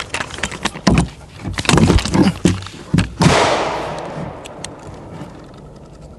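Several sharp gunshots in quick, uneven succession over the first three seconds, the last one loudest, with a long echo fading out over the following two seconds.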